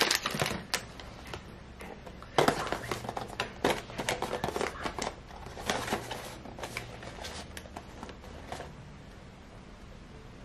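Handling of a cardboard perfume gift box and its cellophane wrap: irregular light clicks, taps and crinkly rustles, busiest in the middle and thinning out near the end.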